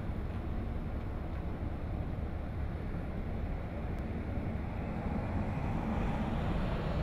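Fire engine's diesel engine running steadily with a deep, even rumble.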